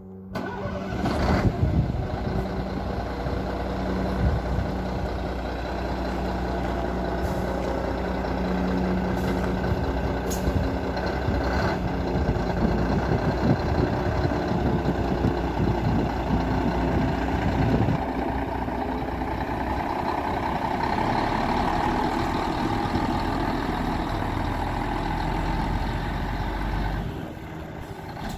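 Scania R124 tractor unit's diesel engine pulling away and driving across a gravel yard, the engine note rising and falling with the throttle. About 27 seconds in it drops back to a quieter idle as the truck comes to a stop.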